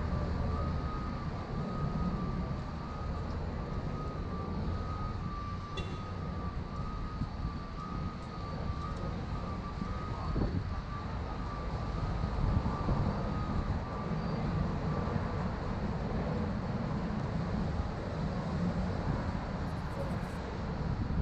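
Downtown street ambience: a steady rumble of traffic. For the first fifteen seconds or so a faint high tone wavers back and forth between two close pitches, then stops.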